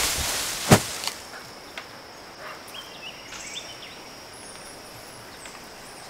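A single heavy thud about a second in as a young Assamese macaque hits the forest floor after a fall from the treetops, with a smaller knock just after. Then quiet forest ambience: a steady high tone and a few short chirps.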